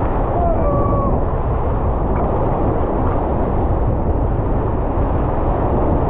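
Loud, steady rush of whitewater rapids around an inflatable raft, with a heavy low rumble from water and spray buffeting the raft-mounted camera. A brief shout from a paddler comes about half a second in.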